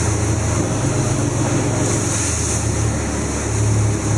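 Fishing boat's engine running steadily with a low drone, under a steady rush of wind and water.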